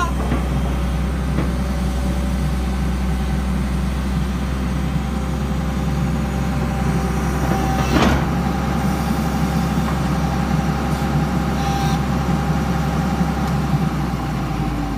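Tata Hitachi EX210 excavator's diesel engine running steadily, heard from inside the cab. A single sharp knock comes about eight seconds in, and a steady high tone sounds over the engine from shortly before that knock onward.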